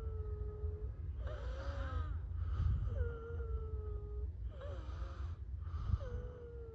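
Pneumatic air wheeze repeating in a cycle. Short hissing bursts with squeals alternate with a held whistle that sinks slightly in pitch, one after another about every one and a half seconds, over a steady low rumble.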